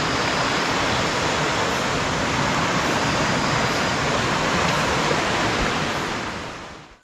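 A jungle stream in flash flood, running loud and steady, swollen and muddy after heavy rain. It fades out near the end.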